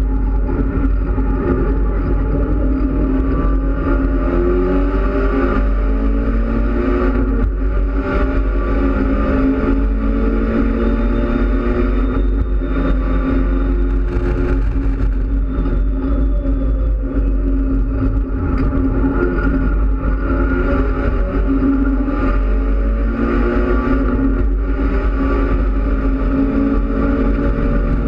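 Mitsubishi Lancer Evolution X race car's turbocharged 2.0-litre four-cylinder engine, heard from inside the stripped cabin while lapping a track. The engine note climbs and drops again and again as the car accelerates and shifts, over a steady rumble of road noise.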